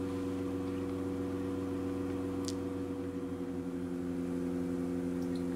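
A steady low hum made of several held tones, with one faint short tick about two and a half seconds in.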